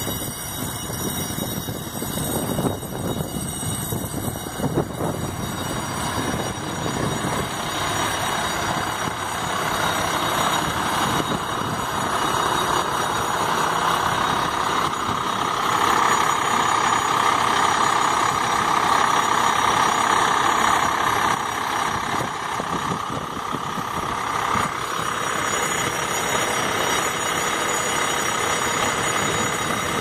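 Fire truck's diesel engine idling steadily, growing louder in the middle as the front of the truck is passed, then easing off.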